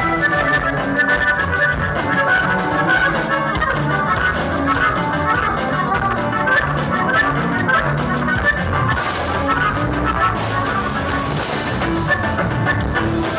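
Live norteño band playing an instrumental passage: a button accordion runs quick melody notes over strummed guitar, electric bass and a steady drum beat.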